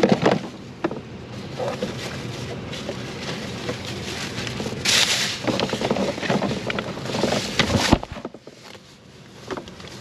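Rustling, scraping and knocking of grocery cartons being packed by hand into the wire basket of a portable 12-volt car fridge, with a paper grocery bag rustling. There is a sharp knock about eight seconds in.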